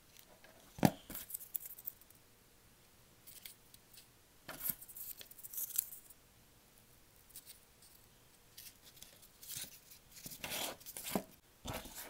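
Corrugated cardboard being worked by hand: short bursts of crisp crunching and scraping, with a sharp knock about a second in.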